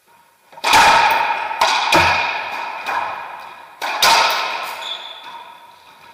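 A racquetball rally: sharp cracks of racquets hitting the ball and the ball striking the court walls, about half a dozen, starting about a second in, each ringing out in a long echo off the enclosed court.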